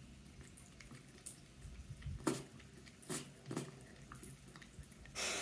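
Bathroom faucet trickling a thin stream of water into a sink, faint, as a cat drinks from it, with several short sharp sounds scattered through and a brief louder hiss just before the end.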